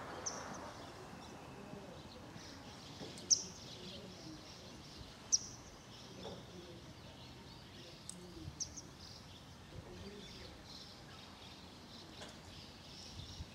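Birds chirping over quiet outdoor background noise, with two short, sharp chirps standing out about three and five seconds in and a few fainter ones later.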